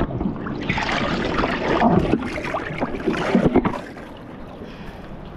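Water splashing and sloshing as a snorkeler in a wetsuit moves against the side of a boat. It dies down to a quieter wash about four seconds in.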